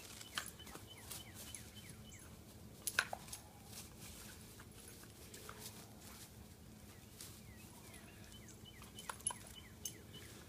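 A young German Shepherd dog leaping and snapping at a spray of water from a garden hose: scattered sharp clicks and knocks, the loudest about three seconds in, over a faint steady hiss.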